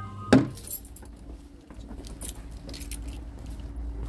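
A sharp knock, then light metallic jingling and clinking, over a steady low rumble.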